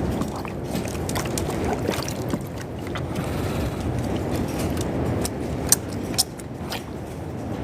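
Strong wind gusting and buffeting the microphone in a steady low rumble, with a few sharp clicks and knocks scattered through it; the two loudest come near the end.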